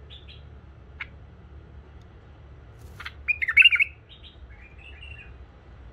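A caged bulbul calling: a couple of short high chirps, then a loud, quick warbling phrase about three seconds in, followed by a few quieter notes.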